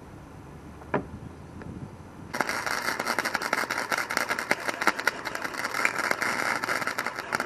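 Wire-feed welder arc crackling steadily as it welds steel, starting a little over two seconds in, after a single sharp click about a second in.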